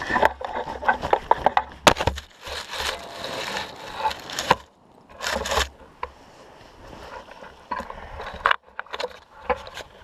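A paraglider pilot's harness, lines and metal carabiners handled right by the action camera after landing: irregular knocks, clicks and scrapes with several longer rustling bursts.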